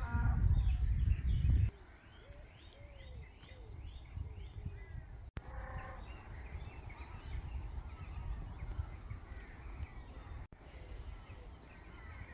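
Birds calling outdoors, a run of short chirps and quick downward-sweeping notes over a steady low background. A loud low rumble fills the first couple of seconds and cuts off abruptly.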